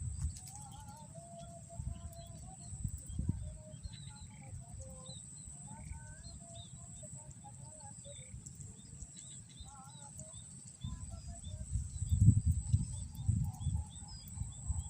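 Wild birds chirping and calling in many short, varied notes, over low rumbling noise that grows louder about two-thirds of the way through, with a steady high-pitched whine underneath.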